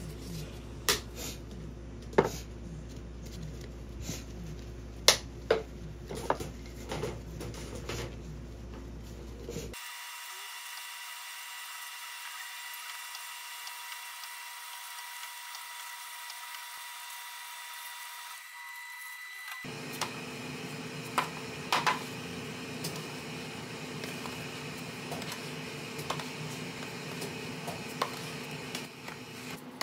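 Sounds of kitchen work: scattered clicks and taps of plastic cups, trays and pastries being handled. In the middle stretch a steady machine whine of several fixed pitches takes over, and a lower hum runs under the later taps.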